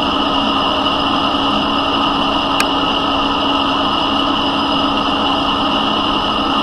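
Smithy metal lathe running with a steady, even hum and whine while its tool is fed slowly into the workpiece, taking a light cut for a shoulder step. There is one sharp click about two and a half seconds in.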